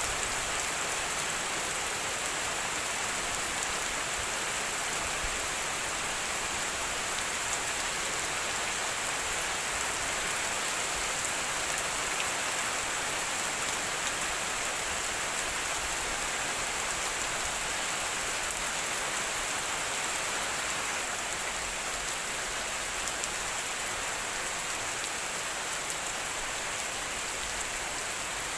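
Steady rain falling and pattering on a surface, an even hiss with fine drop ticks throughout.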